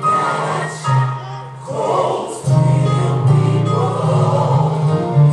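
Gospel music: a choir singing over held bass notes.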